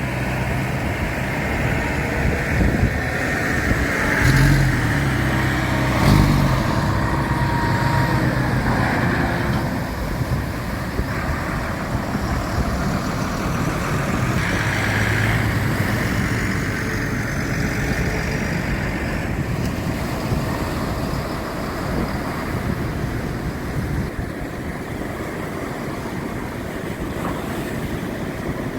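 An engine runs at low revs, rising a little about four and six seconds in and again around fifteen seconds, under a steady wash of wind and surf.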